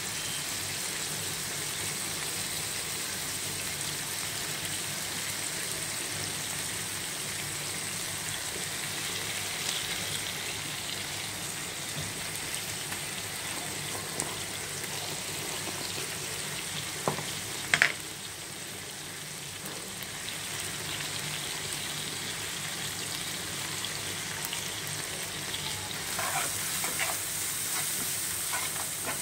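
Sliced onions sizzling steadily in hot oil in a nonstick frying pan. Two sharp knocks come about two-thirds through, and near the end the sizzling gets busier with the scrape of stirring.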